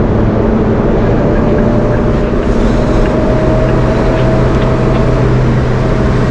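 Car driving along a paved road, heard from inside the cabin: a steady engine hum over road and tyre noise.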